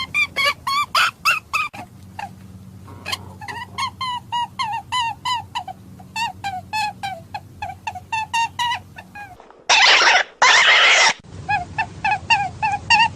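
Recorded hare-hunting call: a fast series of short, squealing, pitched notes, about three or four a second. Near the end they are broken by two loud, harsh, hissing bursts, then start again.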